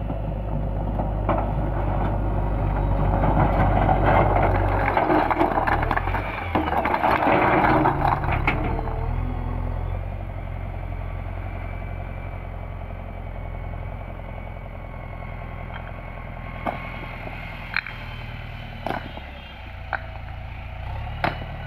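JCB 3DX backhoe loader's diesel engine working the front loader bucket. It revs up and runs loud for several seconds, then drops back to a steady idle. A few short sharp knocks come near the end.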